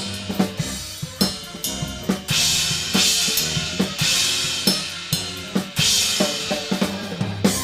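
Drum kit playing big band swing: snare and bass drum with crash cymbal accents about once a second over held band chords, ending on a final crash near the end.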